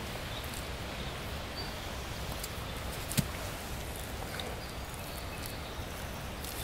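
Steady outdoor background hiss, with one sharp click a little over three seconds in.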